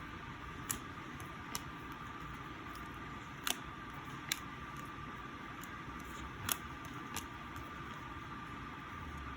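Trading cards being handled and sorted: about six light, sharp clicks and taps, scattered irregularly, over a steady faint room hiss with a thin high hum.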